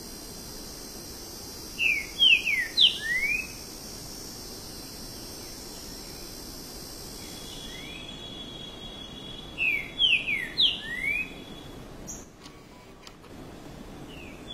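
Green-winged saltator (trinca-ferro) singing: two short loud phrases of about five or six quick slurred whistles each, one about two seconds in and another about ten seconds in.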